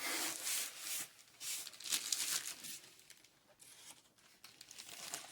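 Packaging being handled and pulled open, rustling and crinkling in a few bursts, loudest in the first three seconds and then fading.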